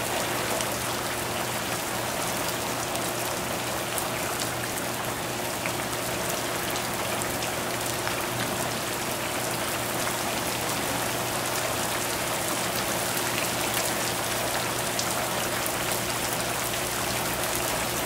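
Steady rain falling, an even hiss dotted with many small drop ticks, over a low steady hum.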